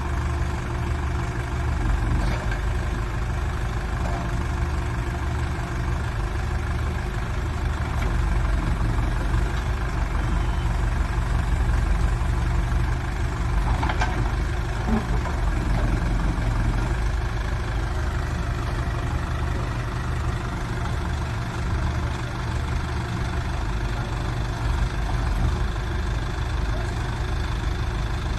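JCB 2CX backhoe loader's diesel engine idling steadily.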